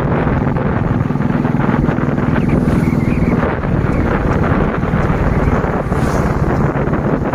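Royal Enfield Classic's single-cylinder engine running steadily at riding speed, with wind buffeting the microphone.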